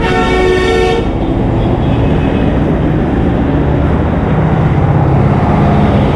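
A vehicle horn honks once for about a second, over the steady noise of street traffic. The engine of a large truck passing close grows louder toward the end.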